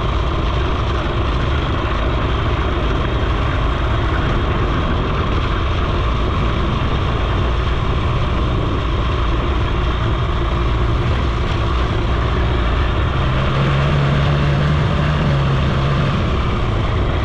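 Suzuki FZ 50 moped's small two-stroke single-cylinder engine running steadily as it rides along a dirt road. A clearer engine tone comes through for a few seconds near the end.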